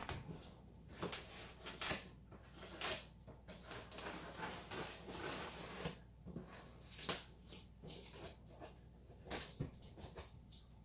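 Scissors cutting through the packing tape on a cardboard box: irregular scrapes, clicks and cardboard rustles.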